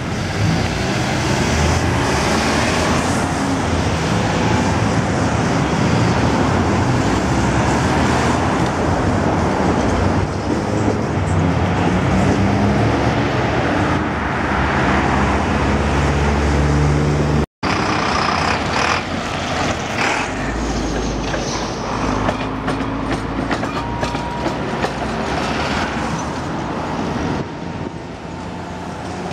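Modernized Tatra trams running along street track amid passing road traffic, with a motor whine rising in pitch about halfway through. The sound breaks off abruptly at a cut, and after it another tram goes by with traffic.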